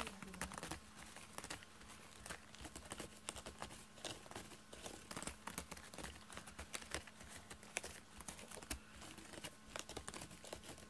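A cat's claws raking a corrugated cardboard scratcher: a fast, irregular run of scratchy rasps and ticks.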